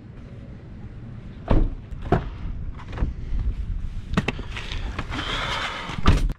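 Footsteps: a few irregular thumps over steady outdoor background noise, with a stretch of hiss near the end.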